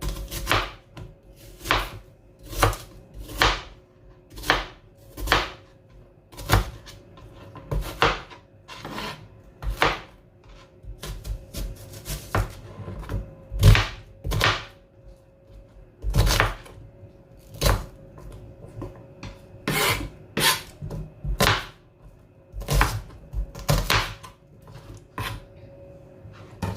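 A knife cutting through white onion onto a cutting board, one sharp knock at a time at roughly one cut a second with short pauses.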